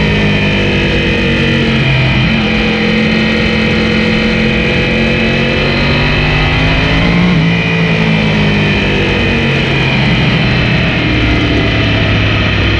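Yamaha R1 sportbike's inline-four engine running at low revs at pit-lane speed, its note dipping and rising a little about halfway through, then settling lower. Wind and road noise rush under it.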